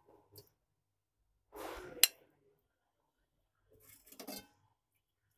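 Serving spoon scraping and clinking against the pot and plate as chicken curry is dished out: a short scrape ending in one sharp clink about two seconds in, then a few lighter clinks around four seconds in.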